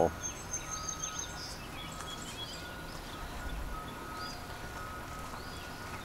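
Steady outdoor background noise with a few faint, short bird chirps scattered through it.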